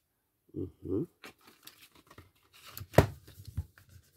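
Cosmetics packaging being handled: rustling and crinkling with scattered clicks and one sharp snap about three seconds in. Two short low sounds come near the start, about half a second apart.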